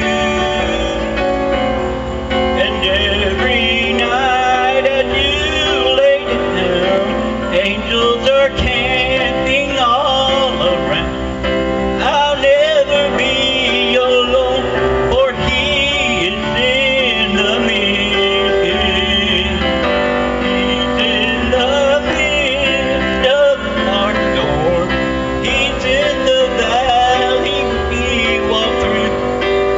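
A man singing solo into a handheld microphone, amplified through a PA, over steady instrumental accompaniment; his sustained notes waver with vibrato.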